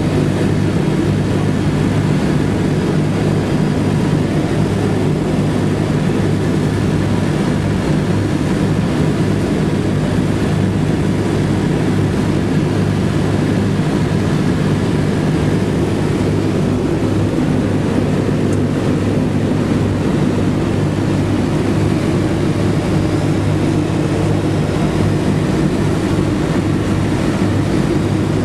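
The four Wright R-1820 Cyclone radial engines and propellers of a B-17G bomber running steadily on landing approach, heard from inside the cockpit.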